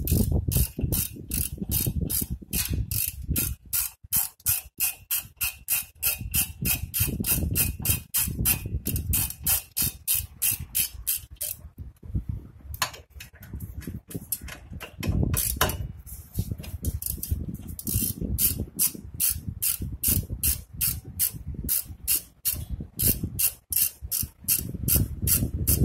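Socket ratchet clicking in rapid, even strokes as it turns a rear brake caliper bolt, with a brief pause about halfway through.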